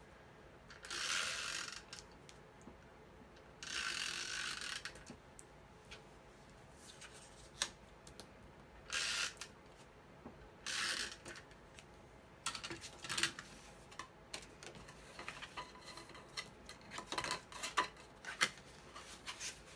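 Sheets of cardstock and patterned paper being handled by hand on a cutting mat: four longer swishes of paper sliding and rustling, then a run of short scratchy rustles and light taps.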